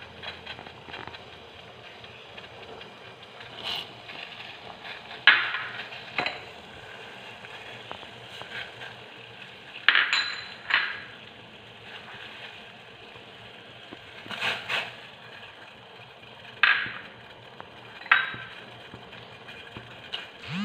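Scattered clinks of a spoon and small bowls against a stainless-steel pot as seeds and spices are tipped into boiling water, about eight in all, over a faint steady hiss.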